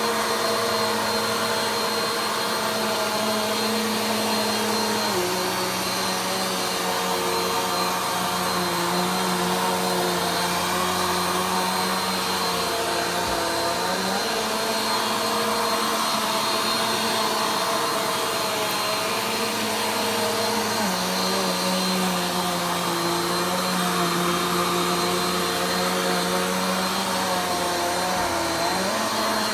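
Vacuum cleaner running steadily through slow vacuuming passes. Its motor note drops a little and comes back up twice.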